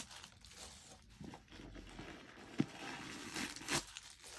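Paper stuffing rustling and crinkling as it is pulled out of a leather bucket bag, with two sharper clicks in the second half.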